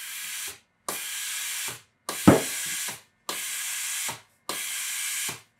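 Sage (Breville) Oracle Touch steam wand automatically purging after being pushed down: five hissing blasts of steam, each about a second long with short pauses between them. A sharp knock sounds during the third blast.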